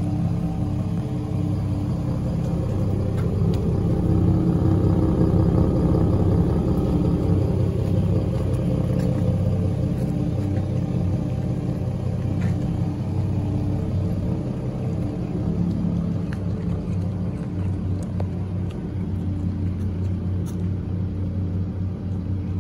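Two 2021 Ford F-150 Raptors' twin-turbo 3.5-litre V6 engines idling at their dual exhausts, warming up after a cold start. It is a steady low rumble that swells a little a few seconds in and then settles.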